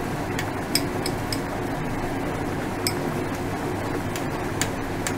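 A metal spoon clinking several times against a small glass bowl, at irregular intervals, while stirring wheat flour into water to make a thickening slurry. A steady hiss runs underneath.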